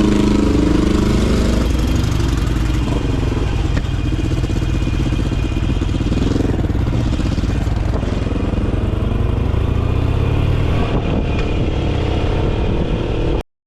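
Harley-Davidson Iron 883's air-cooled V-twin engine running under way, its pitch rising and falling with the throttle. The sound cuts off suddenly near the end.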